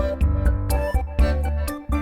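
Background music with a heavy bass line, keyboard notes and a steady beat.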